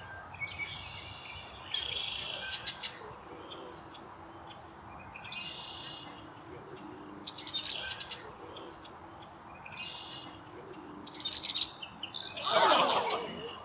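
Birds calling: short high chirping phrases repeat every second or two over a steady outdoor hiss, with a louder call sweeping downward in pitch near the end.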